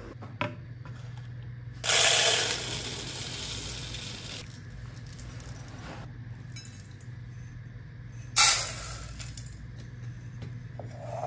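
Dry red rice being poured: a sudden rushing rattle of grains about two seconds in that lasts a couple of seconds, then a second, shorter pour starting sharply near the end.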